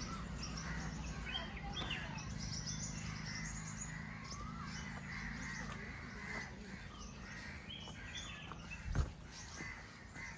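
Several birds chirping and calling with many short, quick notes, over a low steady hum. A dull thump about nine seconds in.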